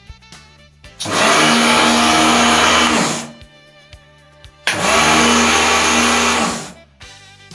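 Kärcher K3 electric pressure washer run twice for about two seconds each. Each time the motor hum rises as it spins up, a loud spray hiss runs over it, then both die away as the machine stops.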